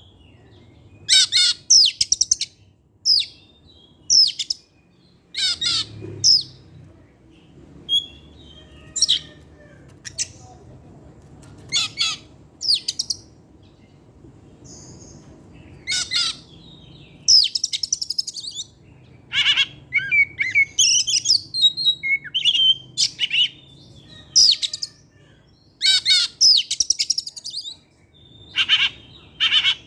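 Oriental magpie-robin (kacer) singing: a run of short, loud, varied phrases of high whistles and quick trills, separated by brief pauses.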